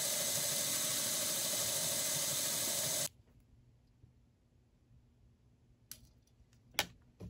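Black and Decker 8V cordless drill running steadily as it spins copper wire into a coil, then stopping suddenly about three seconds in. After it, a few small clicks as pliers work at the wire, the sharpest one near the end.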